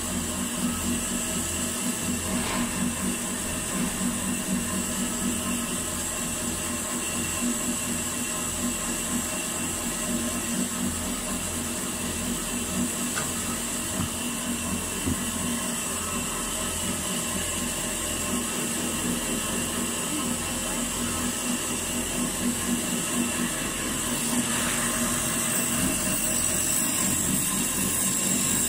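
Steady hum of factory machinery running, with several constant tones over a low fluttering throb; it grows slightly louder over the last few seconds.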